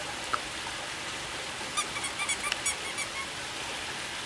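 Steady running water of a backyard rock waterfall, with a quick run of about ten short, high squeaks starting a little under two seconds in.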